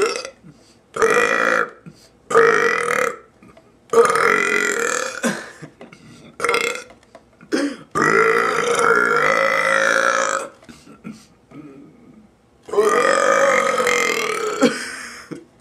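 A man burping loudly, one burp after another: several shorter burps a second or so apart, then two long drawn-out burps of more than two seconds each, the first about halfway through and the second near the end.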